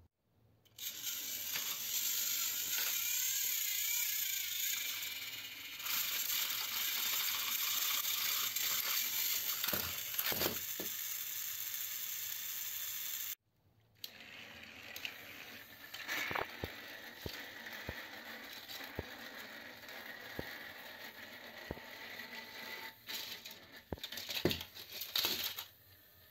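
Small battery-powered toy train motors running with a steady high whirring buzz, two plastic toy engines driving against each other on plastic track. After an abrupt cut the whirring goes on more quietly, with scattered plastic clacks and a burst of clattering near the end as toy trains tumble off the end of the track onto other toy trains.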